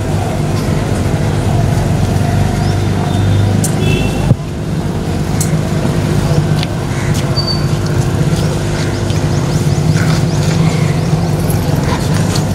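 A steady, loud low mechanical hum under outdoor background noise, with a single sharp knock about four seconds in.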